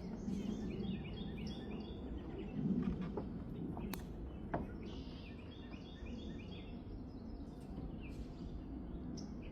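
Birds chirping in short series of quick notes over a steady low background rumble, with a couple of sharp clicks about four seconds in.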